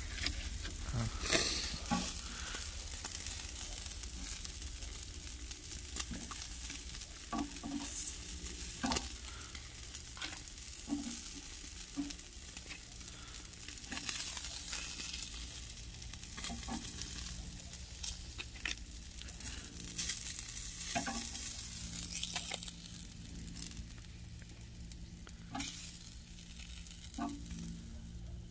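Eel pieces sizzling on a charcoal grill, a steady hiss, with scattered sharp clicks of metal tongs handling the pieces on the grate.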